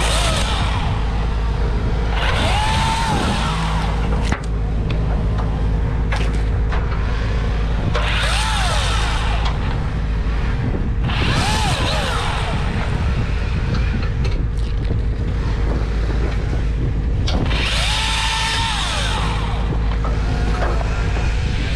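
Battery chainsaw making four short cuts through maple limbs, its motor whine rising, holding and dropping away with each trigger pull. A steady low mechanical drone runs underneath throughout.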